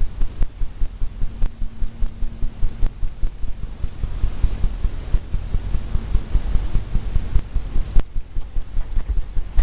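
Palette knife tapping oil paint onto a stretched canvas, a rapid run of dull thumps, several a second.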